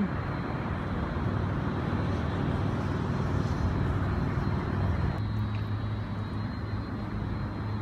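Steady road traffic noise from passing cars. About five seconds in, a low steady engine hum joins it.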